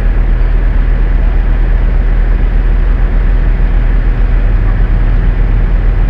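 Diesel engine of an Ammann pneumatic-tyred roller idling at rest, a loud, steady low drone that does not change.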